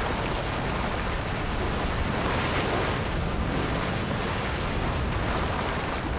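Steady rushing roar of the Nyiragongo lava lake churning in its crater, like surf, swelling slightly a couple of seconds in.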